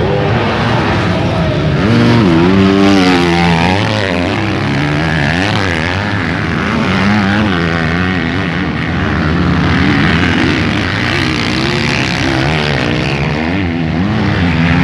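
Several motocross bikes' engines revving up and down as they race past, overlapping pitches climbing and falling as the riders work the throttle and shift, loudest about two to three seconds in.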